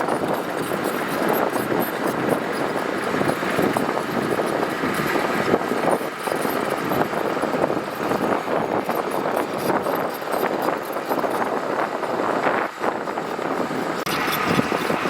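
Heavy earthmoving machinery working gravel: a diesel engine running steadily under load, with continuous rattling and clatter.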